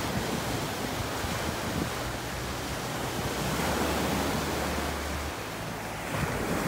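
Small sea waves washing onto a sand-and-pebble beach, a steady rush of surf, with wind rumbling on the microphone.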